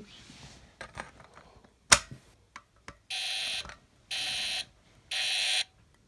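A sharp click about two seconds in, then a Faraday UMMT fire alarm horn sounds three short buzzing blasts about a second apart, the temporal-three evacuation pattern.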